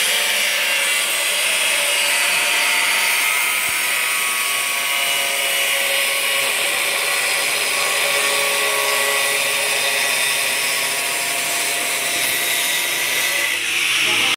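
Handheld angle grinder with a thin cut-off disc cutting through sheet metal, a steady high-pitched grinding screech as the disc runs along the cut.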